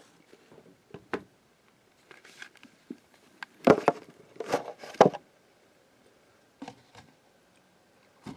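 A plastic DVD case being handled and stood upright: a scatter of soft knocks and taps, the loudest a cluster about four to five seconds in.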